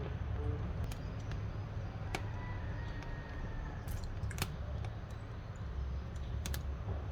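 Wood fire burning in a wood-burning stove, crackling with sharp pops at irregular intervals over a low steady rumble. A faint thin whistle sounds from about two to four seconds in.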